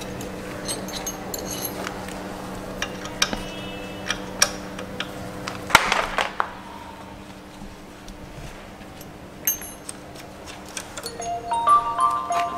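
Scattered light clicks and taps of the ABS sensor wire being unclipped from its holders on a motorcycle's front fork, over a steady low hum. Near the end a few stepped, chime-like musical tones come in.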